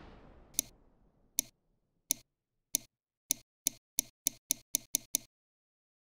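Ticking sound effect: about a dozen sharp ticks that come faster and faster, then stop.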